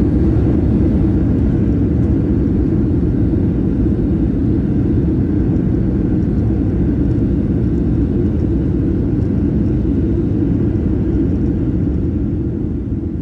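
Jet airliner rolling along the runway, heard from inside the cabin: a steady, loud low rumble of engines and wheels that eases off slowly toward the end.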